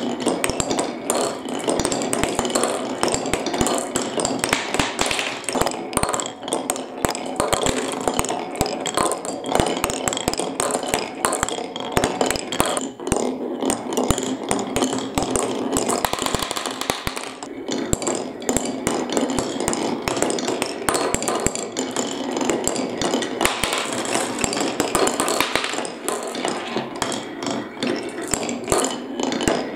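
Glass marbles rolling down a marble run's track. A continuous rolling rumble is overlaid by a dense stream of clicks and clacks as the marbles knock against the track and against each other in the end cup.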